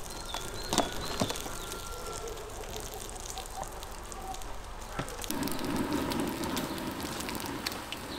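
Lamb tail fat sizzling and crackling in a pan as it renders, a steady haze of small pops. About five seconds in, a louder low rustle rises over it for a couple of seconds.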